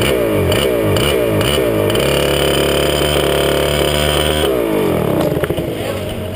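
Swedetech HPV2 two-stroke kart engine at low speed, its pitch surging up and dropping in quick repeated cycles. About two seconds in it settles to a steady note, then about four and a half seconds in it falls away and winds down as the kart rolls to a stop.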